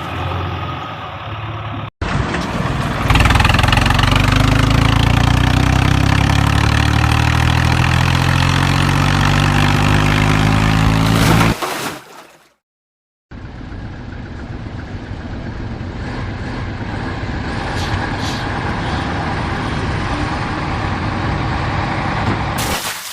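Vehicle engine sound in separate edited clips. First a loud engine whose pitch slowly rises as it speeds up for about nine seconds. Then, after a short gap of silence, a quieter engine running steadily.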